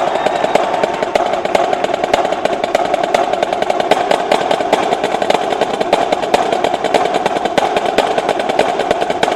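Marching snare drums of a drumline playing fast, continuous stick patterns and rolls, the strokes packed densely at a steady loud level.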